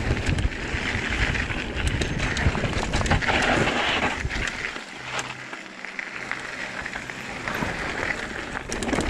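Trek Fuel EX 7 full-suspension mountain bike descending rocky singletrack: tyres rolling over dirt and rocks with frequent clatters and knocks from the bike, over a steady rumble of wind and rolling noise. The rumble drops away briefly about five seconds in.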